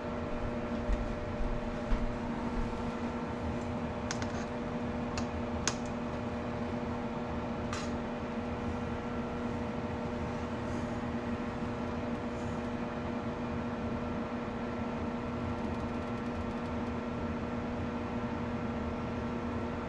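Steady kitchen hum with an even mains-like drone, over a large stockpot of water at a rolling boil. A few light clicks and knocks in the first eight seconds or so.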